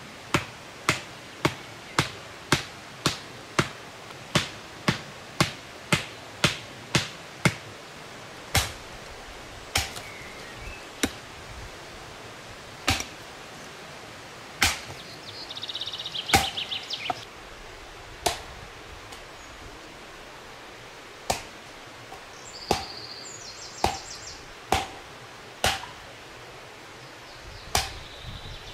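Hatchet blows on wood: a quick, even run of about two blows a second, as a stake is driven into the ground beside the fire ring, then slower, spaced chopping blows on a branch.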